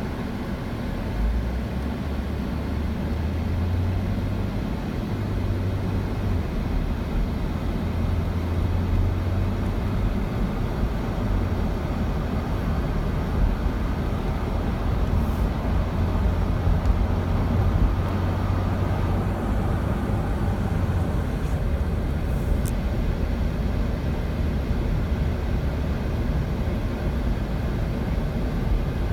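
A vehicle in motion: a steady low engine hum over a continuous rumble, holding the same level throughout.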